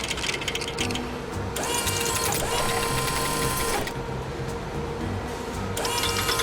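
Cartoon machine sound effects: a fast mechanical rattling buzz that comes in twice, stopping once in between, over a steady background tone and music.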